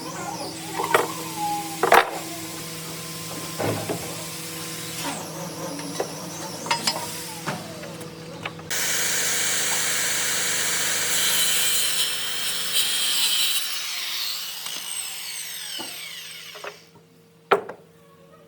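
Workshop woodworking sounds: scattered knocks and taps on wood, then from about nine seconds in a power tool cutting or sanding wood with a loud, even noise for several seconds before it fades and stops abruptly, followed by one sharp knock near the end.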